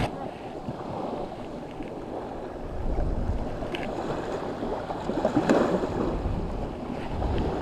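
Wind buffeting the microphone over the steady wash of surf on the beach, the low wind rumble growing stronger about three seconds in.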